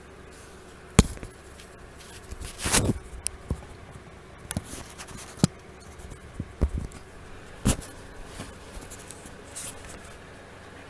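Close handling noise: scattered sharp knocks and short rustles as the camera bumps and brushes against things, the loudest knock about a second in.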